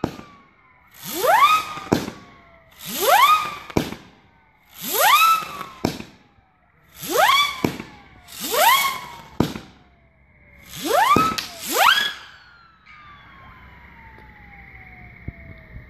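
Wild Bear 200-gram firework cake firing a volley of whistling shots. Each shot is a rising whistle that ends in a sharp crack, about seven in all, one every one to two seconds. After the last shot, about twelve seconds in, a faint steady high tone lingers.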